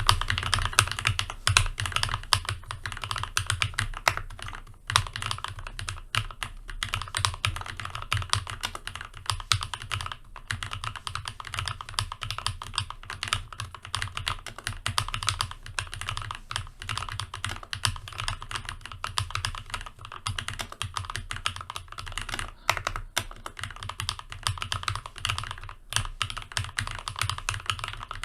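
Keychron K6 mechanical keyboard with spray-lubed red linear switches being typed on continuously, a dense run of key clacks with only brief pauses.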